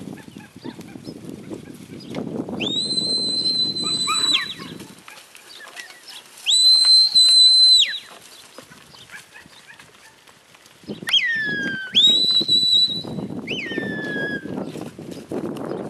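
A handler's high whistle commands to a working cattle dog: long, steady, flat whistles, the loudest about six and a half seconds in, then two quick whistles that drop in pitch near the end. A low rustling noise runs under the first and last few seconds.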